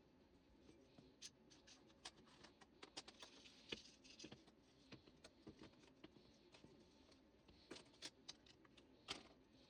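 Faint, irregular clicks and light clatter of small metal and plastic parts and hand tools being handled while a chainsaw is reassembled.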